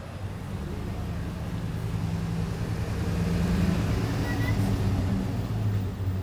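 A motor vehicle's engine running close by on the street, a steady low hum that grows louder toward the middle and then eases off.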